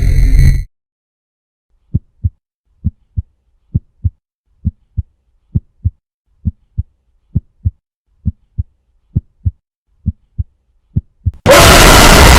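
A heartbeat sound effect: about eleven double thumps, low and dull, roughly one beat a second. It follows a loud electronic tone that cuts off about half a second in, and near the end a sudden loud blast of harsh noise cuts in.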